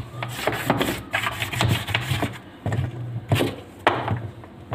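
Toothbrush scrubbing crusted grime off the plastic pulsator of a Samsung washing machine: rasping back-and-forth strokes, about two a second.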